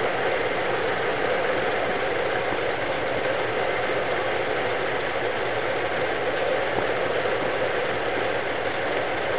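1972 Dodge W200 pickup's 318 V8 engine running at idle, an idle that the owner takes to be erratic and suspects is caused by a vacuum leak.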